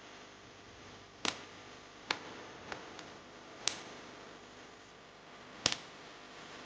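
Sharp clicks and taps of hard small parts being handled during a plug-switch repair, five or so at uneven intervals, over a faint steady hiss.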